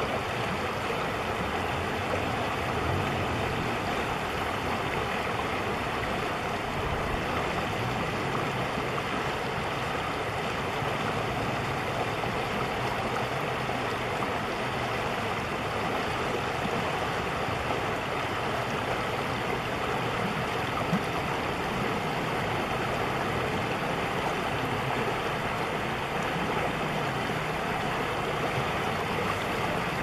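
Shallow river water running fast over a stony bed: a steady rushing and babbling.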